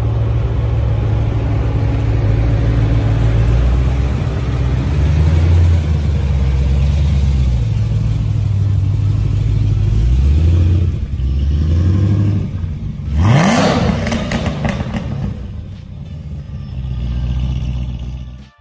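Supercharged, cammed LSA V8 of a Cadillac CTS-V with long-tube headers and aftermarket exhaust, running with its pitch wavering, then a quick rev about thirteen seconds in.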